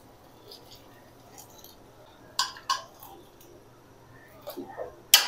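Steel ladle clinking against steel cooking pots while boiled goat trotters are scooped out of a pressure cooker into the curry. Two sharp clinks about halfway, softer knocks a little before the end, then the loudest clink near the end.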